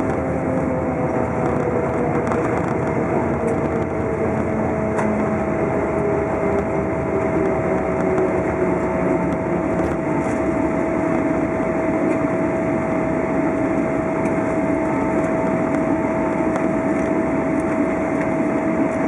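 Steady cabin noise inside a Boeing 777-300ER rolling on the ground after landing, with the engine hum and a steady whine. A lower tone slowly falls in pitch.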